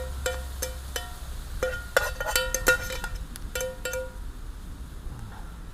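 A metal utensil clinking repeatedly against a metal camp pan while pasta is stirred. Each knock sets the pan ringing briefly, and the knocks come faster for a moment before stopping about four seconds in.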